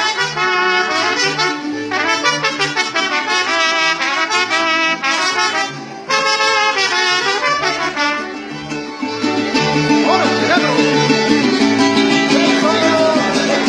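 Brass band music led by trumpets over a steady low beat; about nine seconds in the sound thickens and grows a little louder.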